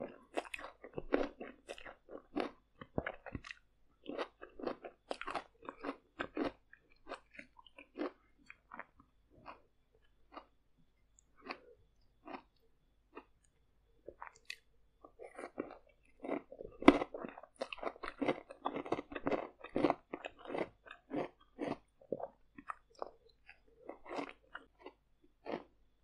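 Loud close-up chewing of stir-fried noodles and vegetables: wet mouth clicks and crunches, coming thick for the first several seconds and again in the second half, with a sparser stretch between.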